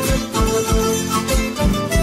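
Traditional folk music with string instruments over a steady bass drum beat, about three beats a second.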